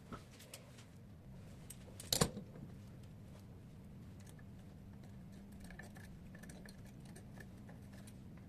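Faint handling sounds: one sharp knock about two seconds in and scattered small clicks, over a low steady hum.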